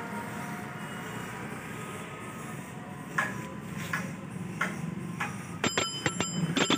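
A few scattered clicks, then near the end a twist-type bicycle bell on the handlebar grip is turned by thumb: a fast run of metallic strikes with ringing tones.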